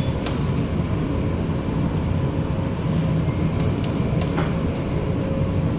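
Steady low drone of a cargo ship's engines and machinery, with a faint steady hum above it. A few sharp clicks fall near the start and around the middle.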